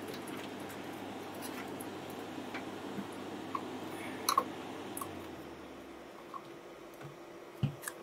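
Scattered small plastic clicks and rustles of cable connectors being pushed onto a desktop computer's motherboard and cables handled inside the metal case. There is a sharper click about four seconds in and a dull thump near the end, over a steady low room hum.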